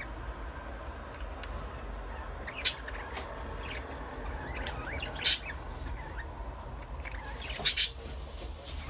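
Budgerigars chirping: soft, continuous chatter broken by four loud, sharp chirps, one a little over two and a half seconds in, one about five seconds in, and a quick pair near the end.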